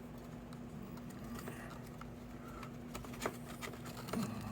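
Faint scattered taps and light clicks of cardstock being folded and pressed into place by hand, with one sharper tap about three seconds in.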